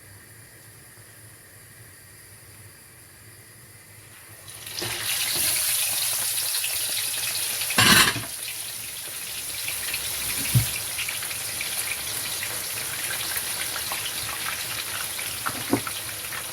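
Tilapia fish going into hot oil in a frying pan: after a quiet start, a loud sizzle begins suddenly about five seconds in, with a sharp spattering burst about three seconds later, then a steady frying sizzle with occasional crackles.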